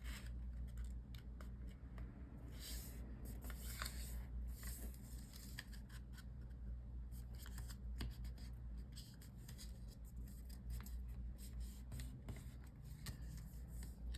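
Origami paper being folded and creased by hand: soft rustling with scattered small clicks and scrapes, over a low steady hum.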